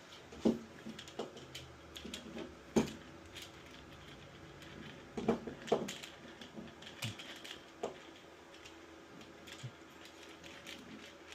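Irregular clicks and knocks from handling and fitting together the parts of a RØDE PSA1+ studio boom arm during assembly, the sharpest about half a second in and near three seconds.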